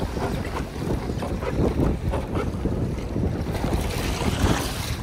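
Strong wind buffeting the microphone over choppy sea, with water splashing and slapping against the hull of a Hobie pedal kayak.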